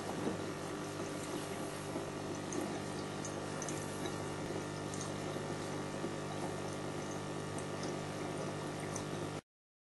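Small electric pump humming steadily, with water bubbling as gas from a homemade HHO (Brown's gas) electrolyser is pushed through it; the sound cuts off suddenly near the end.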